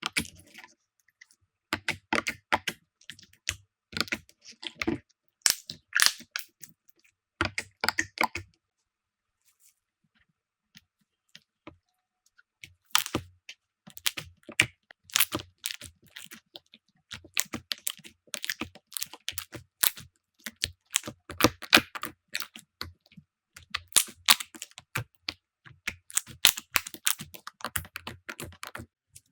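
Slime crackling and popping as it is pressed and worked, in quick clusters of crisp clicks, with a pause of a few seconds about a third of the way in.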